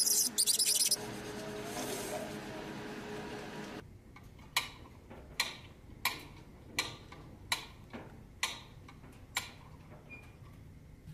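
A loud clicking rattle for about a second as a knob on a small desktop machine is turned, over a steady machine hum that stops a little under four seconds in. Then about eight footsteps on a hard floor, a little under one a second.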